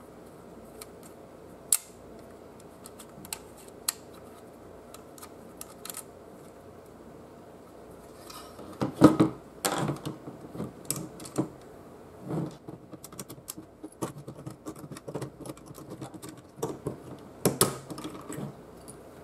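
Small plastic clicks and knocks from hands handling a CD-ROM drive's plastic frame and gear mechanism. A few sparse clicks at first, then a busier run of knocks and clicks from about eight seconds in, the loudest a little after nine seconds.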